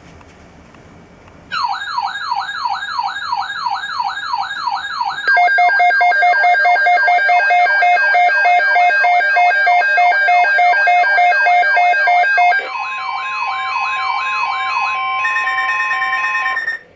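Midland WR-300 weather radio's alert alarm. It begins with an electronic siren warbling about three times a second, starting about a second and a half in. Around five seconds in, rapid high beeping joins it. Later the sound shifts to a steady tone under the warble, then cuts off suddenly, signalling an incoming weather alert broadcast.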